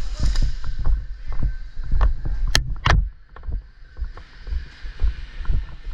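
A gas blowback airsoft pistol firing a few sharp shots, the loudest two close together about two and a half seconds in, over a low rumble of movement and wind on the microphone.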